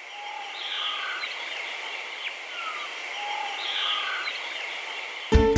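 Outdoor nature ambience of birdsong, with short whistles and falling chirps over a steady high background chirring. The same stretch repeats about every three seconds. Guitar music comes in suddenly near the end.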